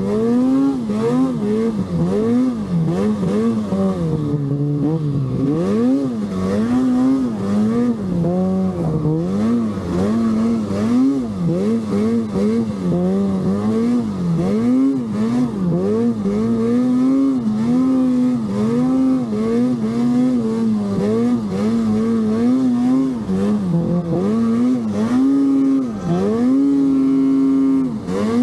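Arctic Cat Alpha One snowmobile's two-stroke engine revving up and down again and again as the throttle is worked through deep powder, its pitch rising and falling every second or two.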